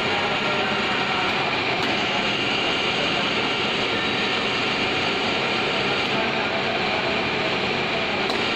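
Large lathe running: a steady, even machine noise that holds level throughout.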